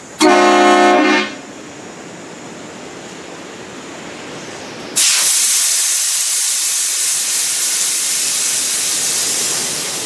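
Homemade air-powered train horn, fired by remote, gives one short blast of about a second. About five seconds in, a loud hiss of compressed air suddenly starts from the horn's air tank and keeps on, slowly easing off.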